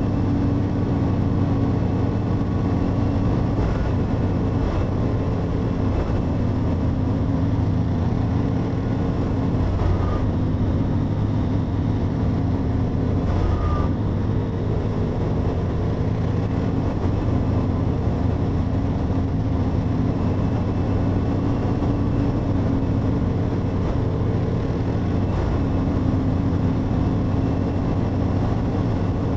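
Motorcycle engine running steadily at cruising speed, its pitch and level holding even, under a constant rush of noise.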